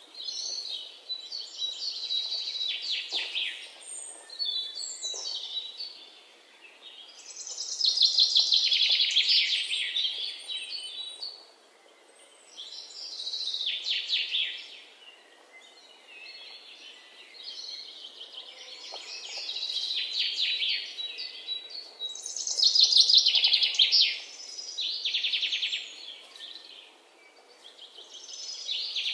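Bird song: high trilling phrases a few seconds long, repeating with short pauses between them.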